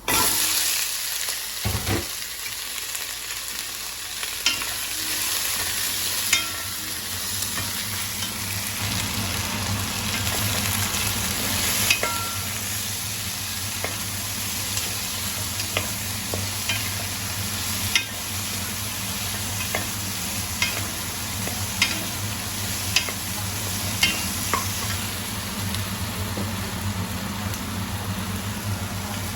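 Food frying in hot oil in a pan, sizzling steadily, while a utensil stirs it and clicks and scrapes against the pan every few seconds.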